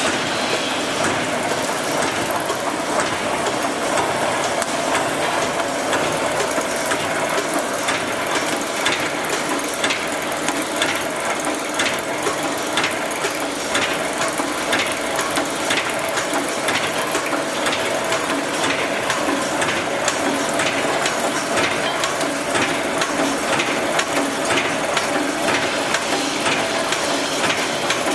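Brick force welded wire mesh making machine running, a steady mechanical hum with a clack repeating about every three-quarters of a second as it cycles.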